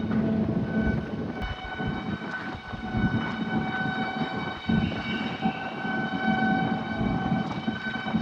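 Ferry's engines and onboard machinery drone, a steady low rumble carrying several constant humming tones.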